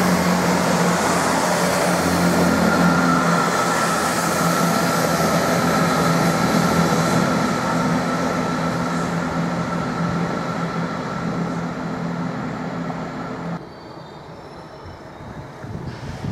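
First Great Western Class 165 Turbo diesel multiple unit running along the station tracks, its underfloor diesel engines droning steadily with a high tone over them for a few seconds. About 14 s in the sound drops suddenly to a much quieter station background.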